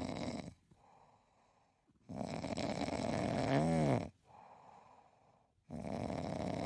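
Snoring: long noisy breaths about every three and a half seconds with quieter pauses between them, and a short squeal that rises and falls in pitch in the middle breath.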